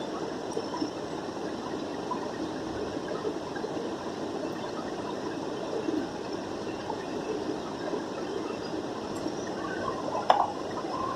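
Steady rushing air noise with no pitch to it, and one sharp click about ten seconds in.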